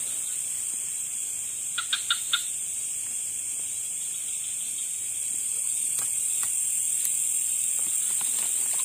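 Steady high-pitched chorus of night insects such as crickets, with a short call of four quick chirping notes about two seconds in.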